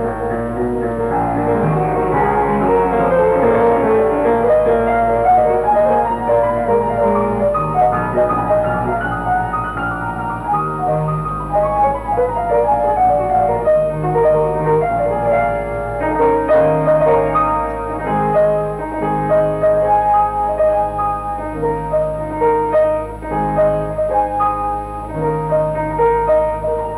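Background music on piano with some bowed strings, brisk and rhythmic, over a steady low hum.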